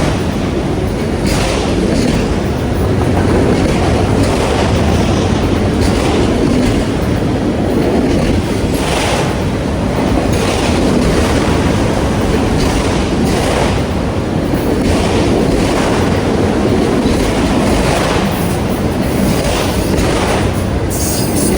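CN freight train rolling past, a steady rumble of steel wheels on rail with irregular clacks as the wheels cross rail joints.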